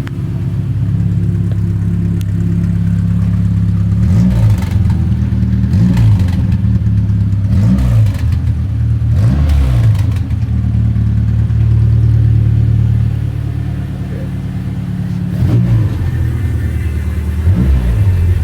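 Renault Clio race car's newly rebuilt engine on individual throttle bodies idling, with a series of short throttle blips that briefly raise and drop the revs. There is a run of four blips early on, a steadier idle in the middle, then a few more blips near the end.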